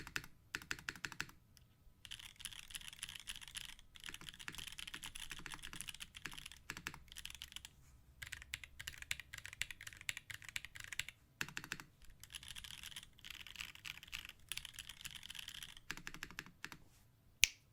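Typing on a TGR Jane V2 mechanical keyboard with Holy Panda tactile switches: fast runs of key clacks broken by short pauses. Two sharper, louder clicks come near the end.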